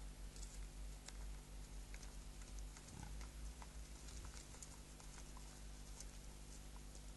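Faint outdoor webcam microphone pickup: a low steady electrical hum with sparse scattered ticks and crackles, and a brief low sound about three seconds in.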